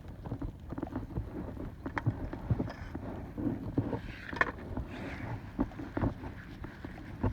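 Wind buffeting the microphone, with irregular small knocks and clicks throughout.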